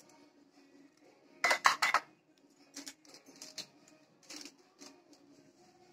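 A spoon clinking against kitchen dishes: a quick run of about four loud clinks about a second and a half in, then a few lighter single taps.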